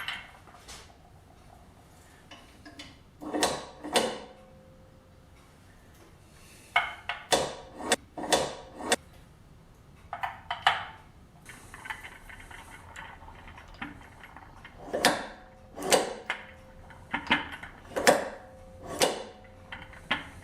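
Sharp clacks and metallic clinks of charging .223 brass cases with rifle powder: a powder measure being worked and cases handled, some strikes ringing briefly, with a short hiss of powder pouring about twelve seconds in.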